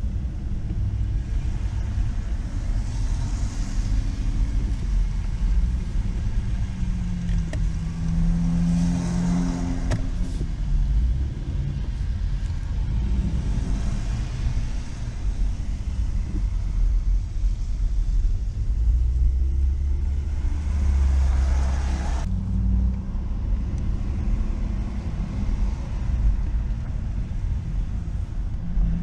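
Traffic on wet city streets: a steady low vehicle rumble, with tyre hiss on the wet pavement swelling several times as cars go by. The sound changes abruptly about three quarters of the way through.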